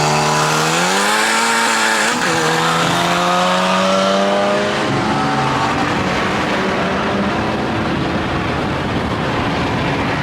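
A car engine under acceleration: its pitch rises about a second in and keeps climbing slowly, then fades into a steady road and tyre rush after about five seconds.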